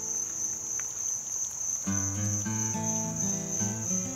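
Insects trilling in one steady, high-pitched, unbroken tone. About two seconds in, soft music of held notes joins underneath.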